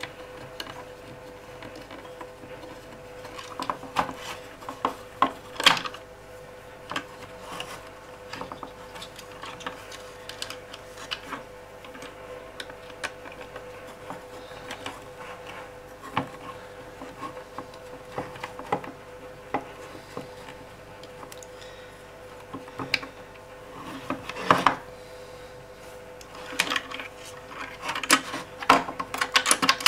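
Small clicks, taps and rubbing from hands and a small tool working inside an opened Turnigy 9X transmitter's plastic case as its stock aerial lead is pulled free, with a faint steady hum underneath. The clicks come in clusters, loudest about 24 seconds in and near the end.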